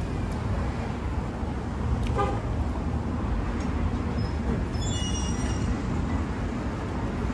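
Steady low rumble of street traffic, with a short car-horn toot about two seconds in.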